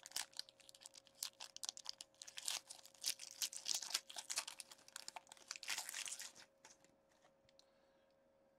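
A foil hockey card pack wrapper being torn open and crinkled by hand, a fast crackling rustle that stops about six and a half seconds in.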